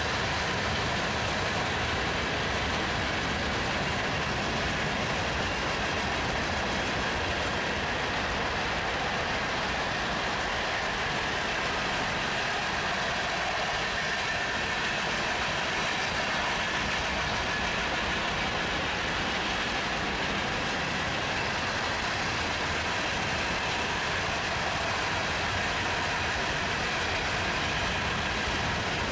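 Freight train cars rolling past, a steady, even noise of steel wheels on rail that holds at one level throughout.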